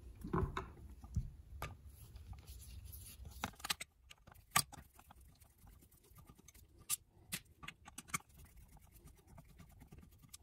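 Screwdriver working the throttle base-plate screws of a Rochester Quadrajet carburetor: faint scraping and scattered small metal clicks, the sharpest about halfway through.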